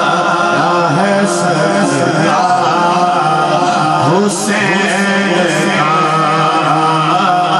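Male voice singing an Urdu devotional manqabat without words in this stretch, drawing out long wavering melodic lines over a steady drone.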